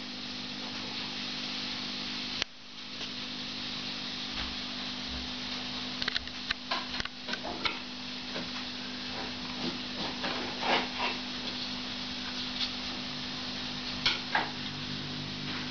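Scattered small scratches and taps, mostly in the middle and again near the end, as British Shorthair kittens scrabble with their claws at a wicker basket and the tiled floor, over a steady low hum and hiss.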